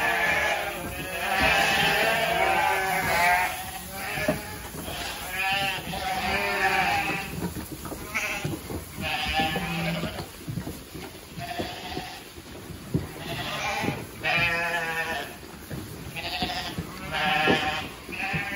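A flock of ewes bleating, many quavering calls overlapping and following one another with short gaps.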